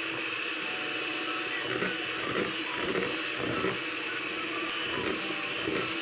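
Electric hand mixer running steadily, its beaters whirring through thin, runny cake batter in a plastic bowl with an even motor whine.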